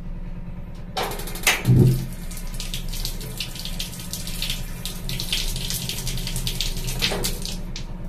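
Water starts running from the tap about a second in and keeps flowing steadily through a tankless gas water heater that is heating it, with a dull thump just after the flow begins and a low steady hum underneath.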